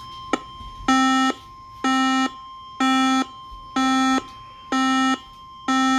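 Electronic alert buzzer sounding six times, each a harsh buzz of about half a second, roughly one a second. It is the alert signal heard before a new severe thunderstorm warning is broadcast.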